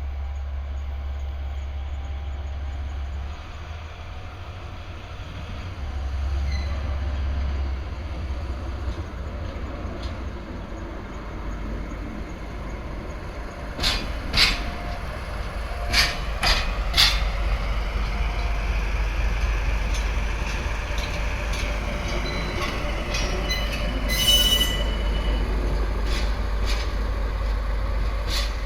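DE10 diesel-hydraulic locomotive running slowly, its diesel engine giving a steady low drone. A handful of sharp clacks come from the wheels over rail joints about halfway through, and a brief high wheel squeal comes near the end.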